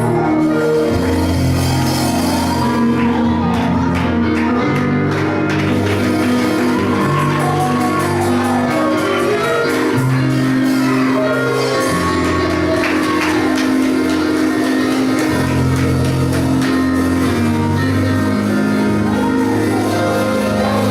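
Gospel worship music with sustained keyboard chords and a moving bass line, light percussion, and voices shouting and singing over it in a large hall.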